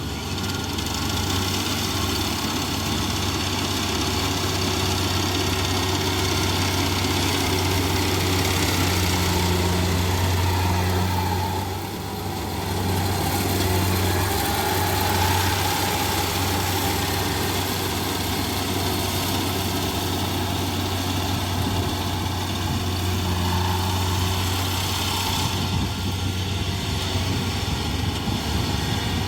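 Rice combine harvester's engine running steadily under load, dipping briefly about twelve seconds in before it picks up again.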